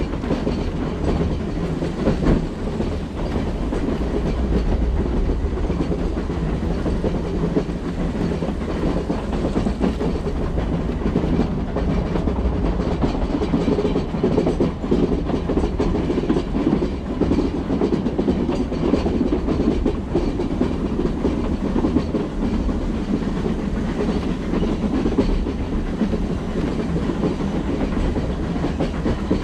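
Narrow-gauge train hauled by the HG 3/4 steam locomotive BFD 9, heard from a carriage window as it climbs the pass: the steady rumble and clatter of the coaches running over the track.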